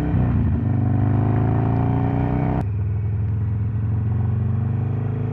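Harley-Davidson Sportster V-twin with a 1250 big-bore conversion, under way and accelerating: the engine note climbs steadily, a click about two and a half seconds in drops the pitch as it shifts up, and it climbs again.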